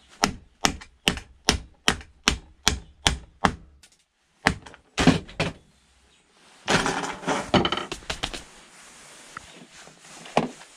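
Hammer striking the plastic blade hub of a pedestal fan, a quick even run of about ten blows at roughly three a second and then a few more, to knock the blade off the motor shaft. The fan then clatters as it is handled.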